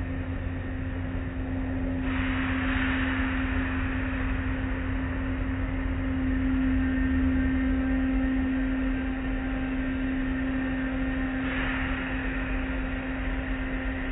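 Automatic tunnel car wash heard from inside the car's cabin: a steady machinery hum under water and cloth strips washing over the car, with a louder hiss of spray about two seconds in and again near the end.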